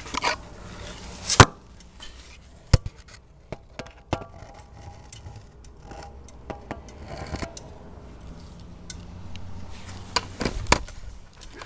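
Scattered sharp clicks and knocks, a second or more apart, the loudest about a second and a half in and a small cluster near the end: objects being handled.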